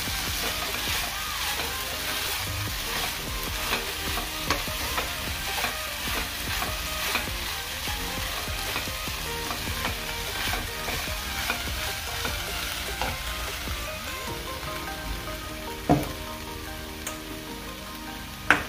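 Wooden spatula stirring soaked puffed rice in a non-stick frying pan: a steady sizzle of frying with light scraping and clicking. Two sharp knocks come near the end.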